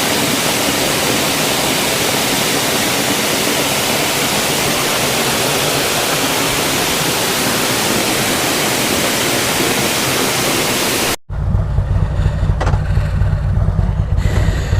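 Steady rush of a large waterfall heard close up. After a sudden cut about eleven seconds in, a Harley-Davidson V-twin motorcycle engine runs with a low, pulsing rumble.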